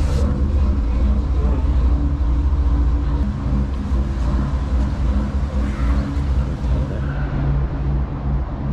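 Dutch barge's diesel engine running with a steady low throb, worked in full reverse at first, the throb easing somewhat after about three seconds.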